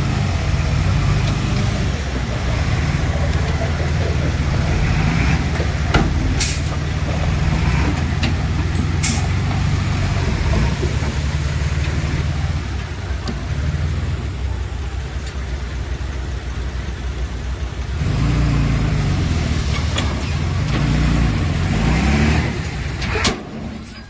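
Komatsu D31P bulldozer's diesel engine running steadily, with a few sharp metallic clanks. The engine note rises and falls for several seconds near the end, then drops away abruptly.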